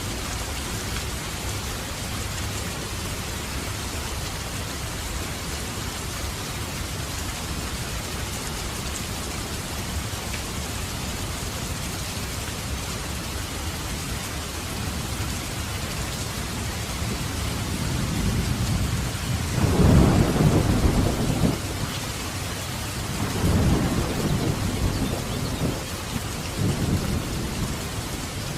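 Heavy rain falling steadily in a dense hiss. About two-thirds of the way through, low rolling thunder swells up three times, loudest on the first roll.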